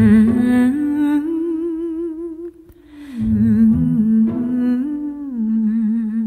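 Dance music with a wordless, hummed vocal line sung with vibrato over a low sustained accompaniment. It pauses briefly about two and a half seconds in, then resumes and fades away near the end.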